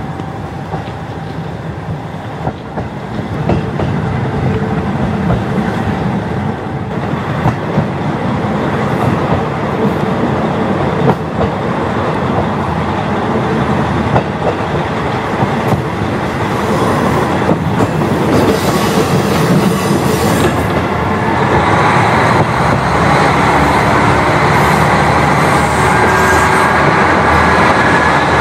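KiHa 40 diesel railcar running, heard through an open window: engine, wheel and rail noise with occasional clicks from rail joints. It grows steadily louder as the train gathers speed, and a faint rising whine comes in about two-thirds of the way through.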